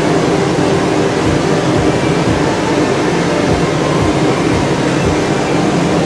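Glass studio equipment, the borosilicate furnace and glass lathe, running with a steady, loud roar and an uneven low throb about two or three times a second.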